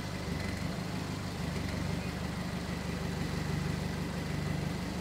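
Diesel engine of a race-prepared pickup truck idling steadily at low revs.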